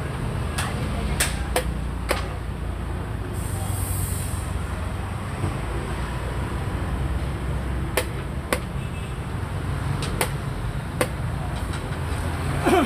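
Xiangqi pieces clacking down on a bamboo board, along with chess clock presses, during fast play: a series of sharp clicks, several in the first two seconds and more from about eight seconds on, the loudest near the end. A steady low rumble lies underneath.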